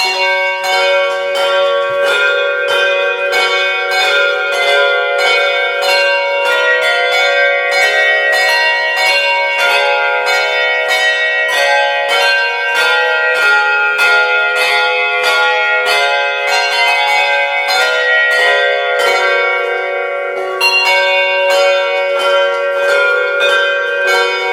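A team of handbell ringers playing a traditional carol, with many hand-held bells struck together in chords at about two strikes a second and their tones ringing on between strikes. The bells come in all together at once, at full level.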